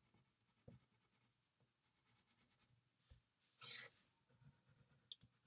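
Faint scratching of a wax crayon making small marks on paper, close to silence, with a brief soft rustle a little past halfway.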